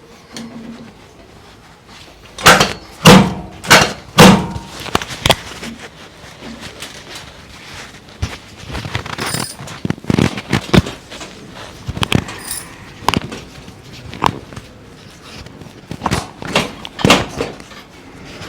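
Sharp slaps and thumps of hands working on a patient's body during a chiropractic adjustment: four loud strikes in quick succession about two to four seconds in, then lighter, irregular strikes.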